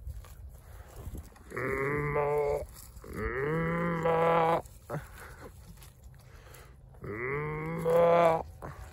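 Cow mooing three times, each call about a second long, starting low and jumping up in pitch partway through.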